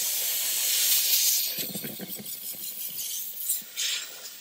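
Handheld steam cleaner wand with a brush tip hissing as it jets steam into a car's windshield cowl. The hiss is loudest for about the first second and a half, then eases to a quieter, uneven hiss.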